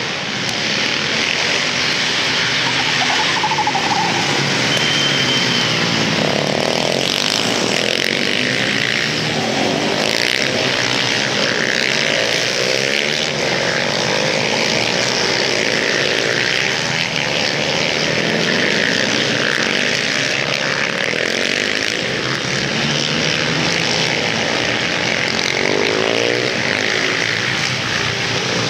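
Several supermoto motorcycle engines racing together, revving up and down, with rising and falling pitch as riders accelerate, brake and corner.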